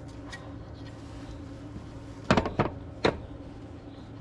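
Sharp knocks and clatter of the castellated propeller nut and hand tools being handled on an outboard's propeller shaft: two close knocks a little past halfway, then one more shortly after.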